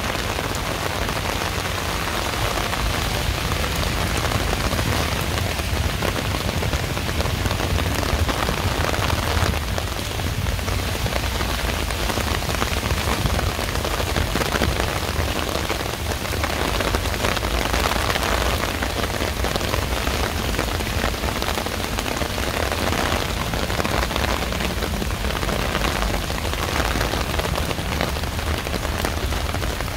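Heavy rain pouring steadily in a dense, even hiss of drops on the street and surfaces, with a steady low rumble underneath.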